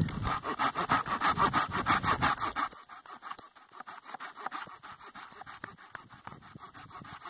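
Small hand saw cutting through a dead branch held against the knee for firewood, quick even back-and-forth strokes. The strokes are heavier for the first few seconds, then lighter.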